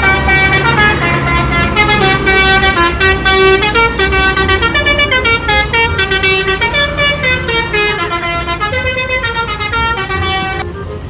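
Bus telolet horn, a Basuri multi-tone horn, playing a quick tune of short notes stepping up and down in pitch over a low engine rumble. The tune stops shortly before the end.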